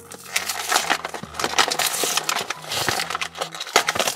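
Clear plastic toy packaging crinkling and crackling as it is handled and opened by hand, with many sharp irregular crackles.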